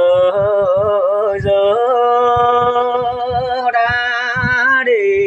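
Mường folk singing: a single voice holds long, ornamented vowels, climbing to a higher note about four seconds in and dropping near the end, over low beats of the accompaniment.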